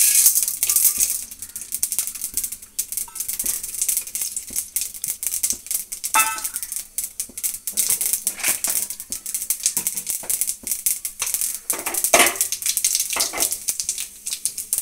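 Tempering in hot oil: urad dal and mustard seeds frying in a kadai with a dense, rapid crackle of small pops and hiss. The crackle is loudest right at the start as the dal pours into the oil, then carries on unevenly.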